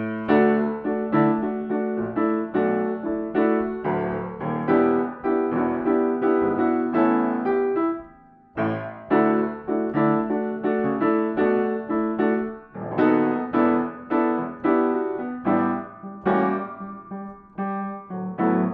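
Background solo piano music, a run of ringing notes at an easy pace, with a short break about eight seconds in.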